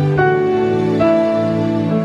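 Slow, gentle background music of long held notes, moving to a new chord about every second.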